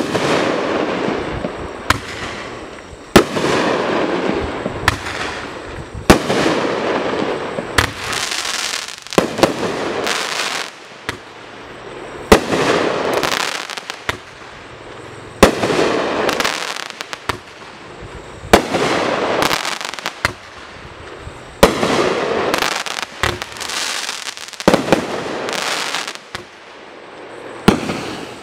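Mad Ox Velociraptor 500-gram fireworks cake firing shot after shot, about every three seconds. Each shot is a sharp bang followed by a few seconds of crackling and sizzling from the burst, which fades before the next shot.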